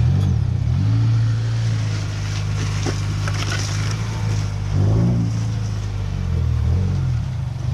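2019 Subaru WRX's turbocharged 2.0-litre flat-four engine running just after a start, as the car is backed up. It holds a steady low note, with its pitch sliding up and down briefly at the start, about five seconds in, and again near the end.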